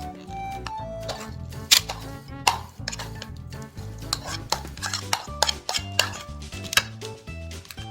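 A utensil stirring and scraping in cookware, with many irregular sharp clinks and knocks against the pot, over soft background music.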